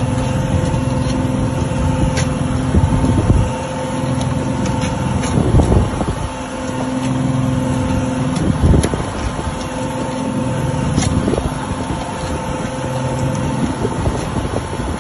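Boat engine running steadily, a constant low hum over a rushing noise, with a few light clicks and knocks.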